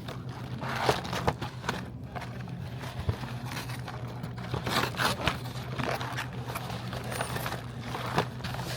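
Packaged snacks being handled and loaded into a vending machine: plastic wrappers crinkling with scrapes and light knocks, over a steady low hum.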